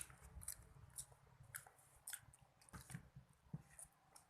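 Faint chewing of nasi padang: irregular wet mouth clicks and smacks as a person eats.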